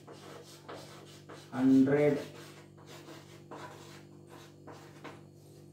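Chalk scraping and tapping on a blackboard as words are written out in short strokes.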